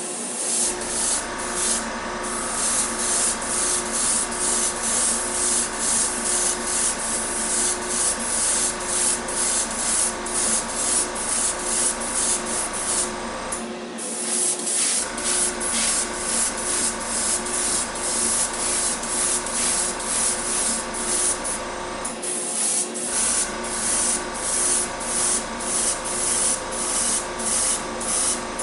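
Airbrush spraying primer onto small model wheels in short hissing bursts, two or three a second, over a steady motor hum that drops out briefly twice.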